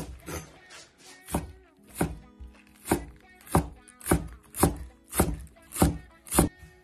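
Chinese cleaver chopping Chinese chives (garlic chives) on a wooden cutting board: about ten single sharp chops, a little over half a second apart. Background music plays under it.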